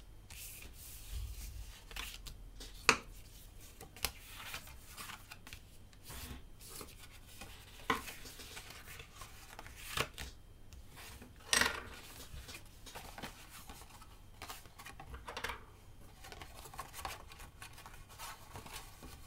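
Sheets of cardstock being shifted, folded and pressed flat by hand on a tabletop: soft rustling and scraping with scattered sharp taps and snaps of the card, the loudest about three seconds in and near twelve seconds.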